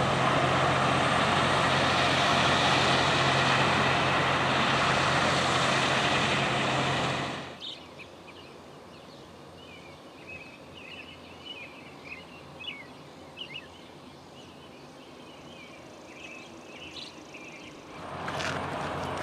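Loram rail grinder train working past, a loud, steady mix of engine drone and grinding noise that cuts off suddenly about seven seconds in. Then it is quiet, with small birds chirping, until loud mechanical noise starts again near the end.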